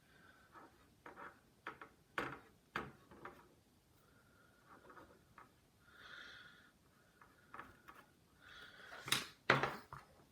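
Scattered light clicks and taps of metal tools, such as tweezers, handling a motherboard during chipset desoldering. A couple of louder knocks come just after nine seconds, and brief hisses come around six and nine seconds in.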